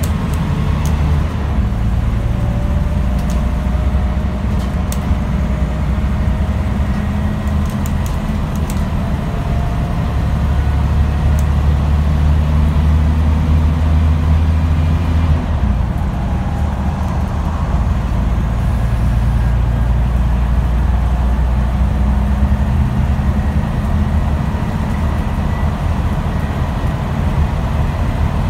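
Scania N94UD OmniDekka double-decker bus's diesel engine pulling hard, heard from inside the passenger saloon: the engine note climbs steadily, drops abruptly about halfway through as the gearbox changes up, then builds again.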